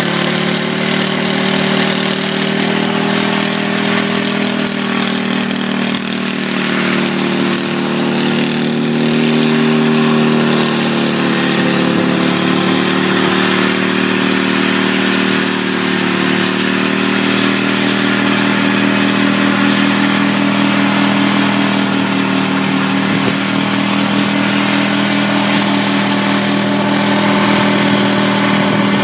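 Homemade helicopter's engine running continuously with the rotor turning, its pitch wavering a little in the first half and then holding steady.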